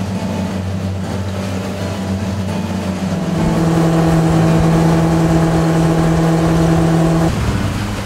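Motorboat engine running under way, a steady hum. About three seconds in, the engine note jumps higher and louder and holds there, then drops back near the end.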